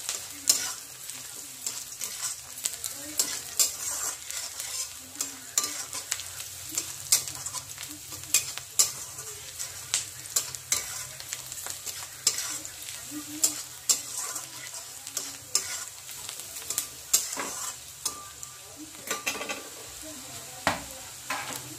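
Sliced onions sizzling in hot oil in a metal kadai, with a metal spatula stirring them and scraping and knocking against the pan in an irregular run of clinks.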